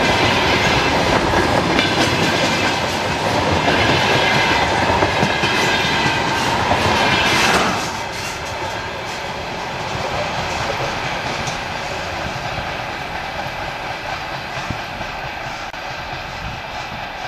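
Freight train of empty flatcars passing close at speed, its wheels clattering over the rail joints with a high metallic ringing. About eight seconds in the sound drops suddenly to a quieter, steady rail rumble.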